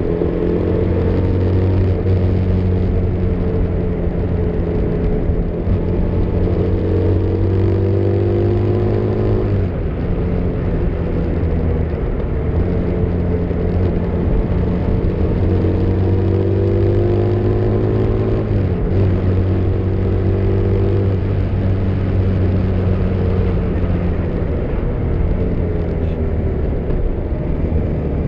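Motorcycle engine running under load on the move, its note climbing steadily with throttle, then dropping abruptly twice, about a third and two-thirds of the way through, as it shifts or eases off before pulling again. A steady rush of wind and road noise runs underneath.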